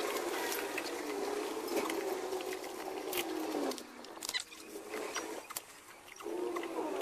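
Fast-forwarded sound of a rubber motorcycle inner tube being worked into a tyre by hand: a rapid patter of rubbery rustles and clicks over a wavering hum, dropping quieter for a couple of seconds in the middle.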